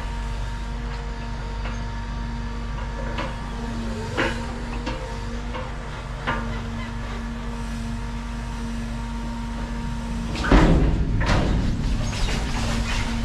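An engine runs steadily throughout, with a few sharp knocks and a louder clatter about ten and a half seconds in.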